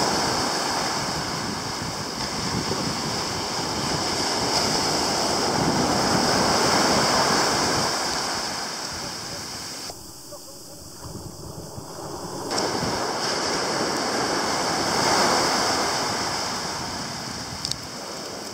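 Ocean surf breaking and washing up a sandy beach, swelling and ebbing, with wind buffeting the microphone. The sound drops away for a couple of seconds about ten seconds in, then comes back.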